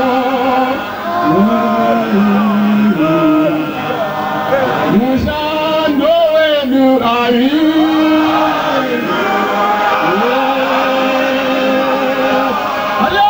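Several voices singing a chant-like church hymn in unison and harmony, with long held notes and sliding pitches.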